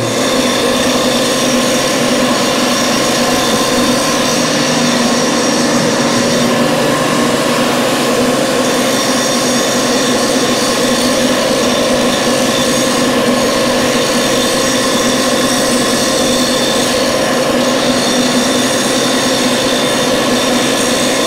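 A machine running steadily and loudly, with several steady whining tones over a dense hiss.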